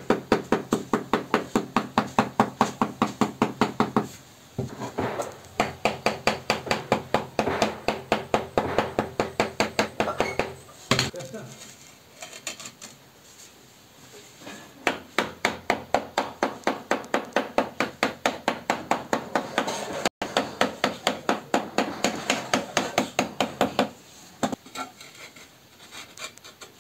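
Rapid tapping with a hand tool on floor tile being bedded in cement mortar, about five taps a second in runs of several seconds with short pauses, and one louder knock about halfway through. Near the end, quieter scraping as a tile is slid and pressed into the wet mortar by hand.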